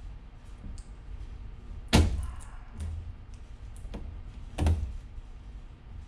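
Two sharp knocks, about two seconds and nearly five seconds in, with lighter clicks and taps between: a screwdriver and hands working on the circuit board in the back of a flat-screen TV to remove it.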